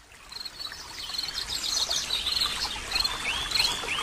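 Birds chirping: a short high note repeating about every half second, with several rising whistled calls near the end.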